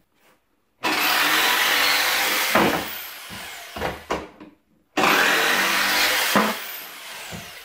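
Jigsaw cutting a wood scrap into blocks in two runs: it starts about a second in, stops for a moment about four and a half seconds in, then starts again.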